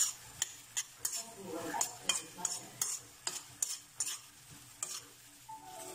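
A metal spatula stirring snails in the shell in a metal wok: sharp scrapes and clacks, two to three a second, over a faint sizzle of frying. The clacks stop near the end.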